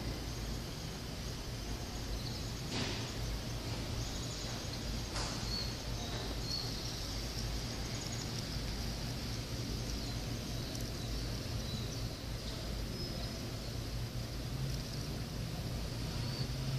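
Steady low background rumble of outdoor ambience with faint, scattered high bird chirps and a couple of sharp clicks.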